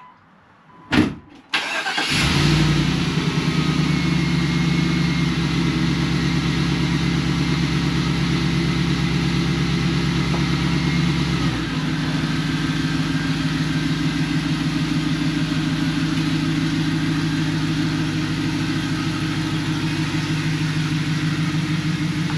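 2003 Jeep Wrangler TJ engine starting after a thump about a second in, then idling steadily. About halfway through, the idle steps down to a lower, steady note while the Jeep is moved out of the garage.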